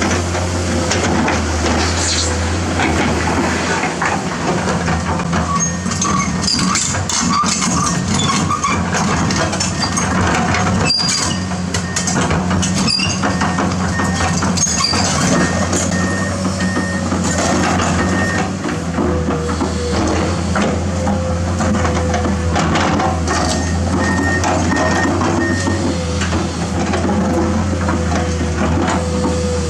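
Komatsu PC210-10 excavator's diesel engine running steadily under load with hydraulic whine, while its bucket scrapes and knocks against dirt and rocks. A regular beeping alarm sounds in two stretches.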